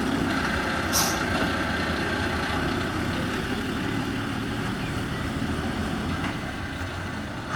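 Classic Saurer Swiss Post bus's diesel engine running steadily, growing gradually quieter as the bus pulls away, with a short hiss of air about a second in.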